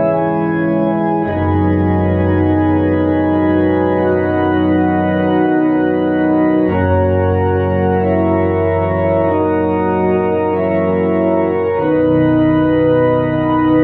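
Tokai YX 400 electronic organ playing a slow hymn in sustained chords with a pedal bass line, on a pipe-organ registration.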